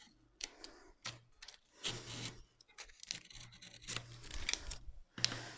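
Self-adhesive decorative film being trimmed with a craft knife at the edge and the cut-off strip peeled away: irregular scraping and crinkling with a few small clicks.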